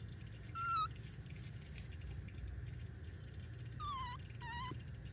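Baby macaque giving three short, high coo calls: one about half a second in and two close together near the end, each dipping slightly in pitch.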